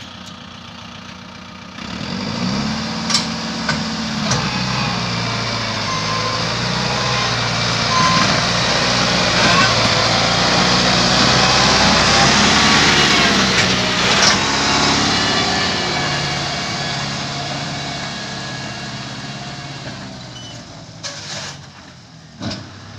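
Kubota MU5501 tractor's four-cylinder diesel engine revving up about two seconds in as it pulls off with a heavy sugarcane trailer, growing louder as it passes close and then fading as it moves away. A few short knocks stand out, the loudest about fourteen seconds in.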